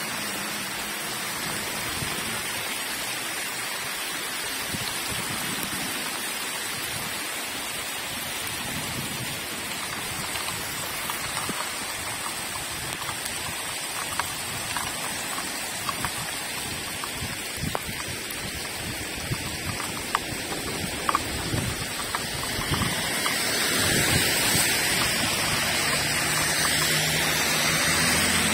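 Heavy rain pouring down in a steady hiss on the wet road and ground, with scattered sharp ticks of nearby drops through the middle. It grows louder near the end as a car's tyres swish past on the flooded road.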